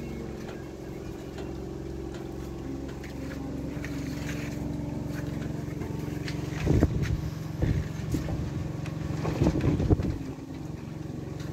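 A steady machine hum of several held low tones, like a small motor running. In the second half several loud, low rumbling bursts come over it.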